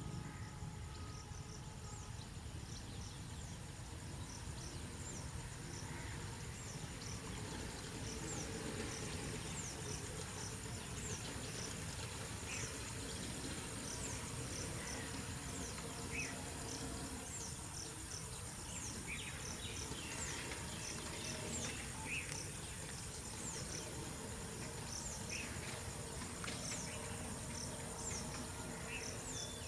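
Insects droning steadily at a high pitch, with short high chirps repeating about once a second and a few scattered bird calls, over a steady low rumble.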